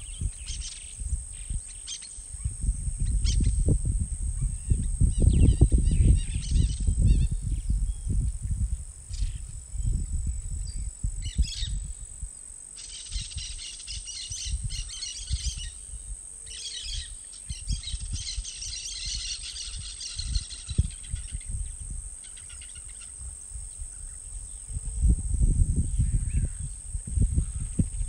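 Birds calling and chirping over a steady, high-pitched insect drone, with a dense burst of chattering bird calls about halfway through. A low, gusty rumble swells and fades, strongest early on and again near the end.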